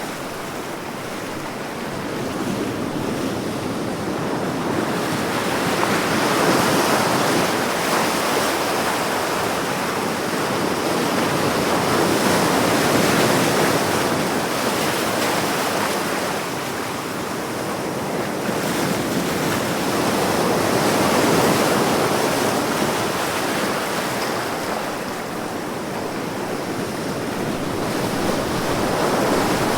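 Sea waves washing onto the shore in a continuous surf, swelling and ebbing slowly with a louder surge every several seconds.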